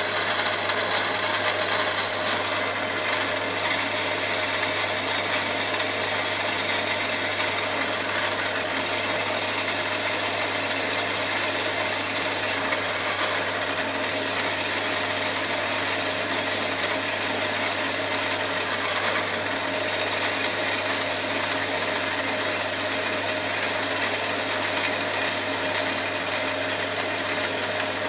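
Milling machine running steadily with a long, slender cutter boring into a solid aluminium block, a constant motor hum and whine with the cutting noise.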